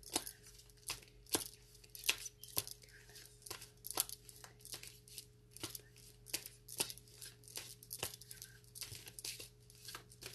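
Irregular sharp light clicks and taps, about two or three a second, over a faint steady hum.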